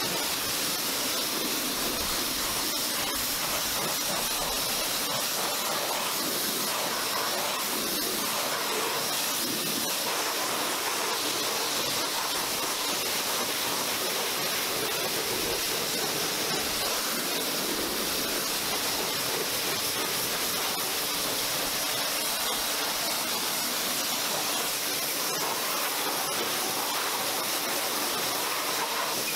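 Pressure washer lance spraying a steady jet of water over a car's engine bay, rinsing it down: a constant hiss of spray with water splashing off the engine.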